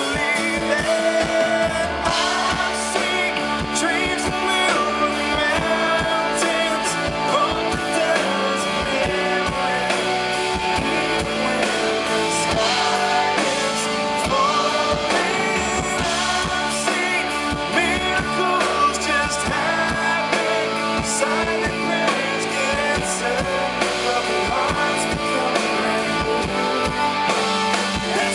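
Live rock band playing: electric guitars, bass guitar, drums and keyboard, with singing over them.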